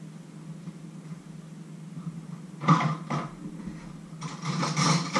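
Kitchen clatter from things being handled: two sharp knocks about half a second apart near the middle, then a quick run of rattling and clinking from about four seconds in, over a steady low hum.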